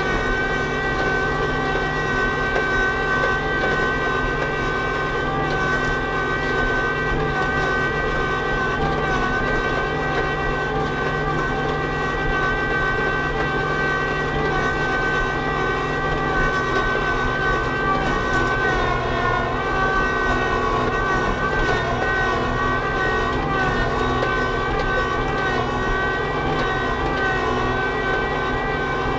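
Kubota LX2610 compact tractor's diesel engine running steadily under load as it climbs a slushy, icy hill in two-wheel drive on chained tires, with a steady high whine over the engine note.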